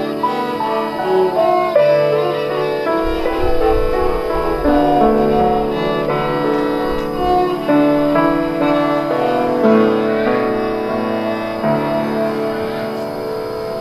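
Piano trio playing classical music: a violin and a cello bowing sustained melodic lines over a Yamaha grand piano.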